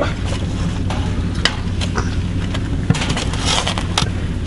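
A steady low hum with scattered sharp clicks and knocks, a small cluster of them near the end.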